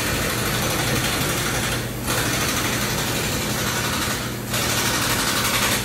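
Machine noise in a car repair shop: a steady high hiss-like whirring in three runs of about two seconds each, with brief breaks about two seconds and about four seconds in, over a steady low hum.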